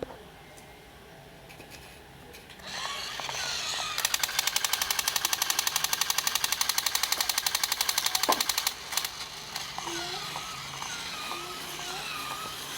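Battery-powered crawling toy running: its small gear motor and legs make a rapid, even clicking rattle. The clicking starts about four seconds in and drops to a quieter whirring clatter about nine seconds in.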